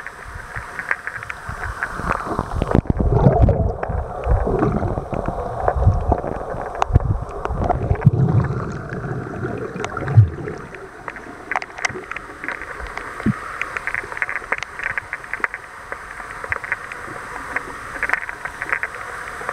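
Underwater sound picked up by a submerged camera: steady muffled water noise with gurgling and scattered clicks. It is joined by heavy low thumps and rumbles for several seconds early on, the loudest about ten seconds in.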